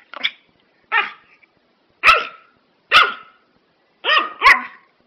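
A dog barking six times, about once a second, the last two barks close together.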